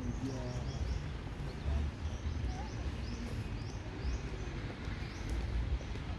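A small bird repeating runs of short, high chirps over a steady low rumble, with faint distant voices near the start.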